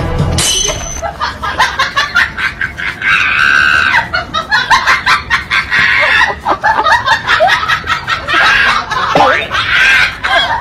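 Human voices screaming and laughing in rapid, loud bursts.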